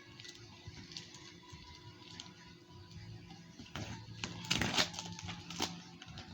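Packaging being handled: a burst of rustling and scraping of plastic and tape starts about four seconds in and lasts about two seconds, over faint steady background music.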